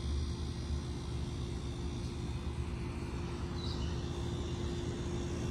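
Outdoor background noise: a steady low rumble with a constant faint hum running under it.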